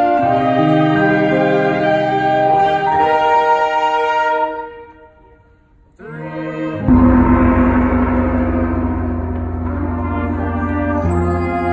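Marching band winds holding sustained chords that die away about four seconds in. After a short pause the band comes back in with a loud crash and low drums about seven seconds in, then brass and woodwinds hold full chords over it.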